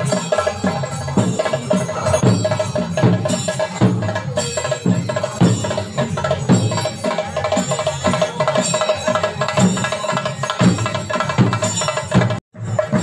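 Kerala temple-festival percussion: drums beaten in a fast, steady rhythm, each stroke dropping in pitch, over a ringing metallic layer. The sound cuts out for an instant near the end.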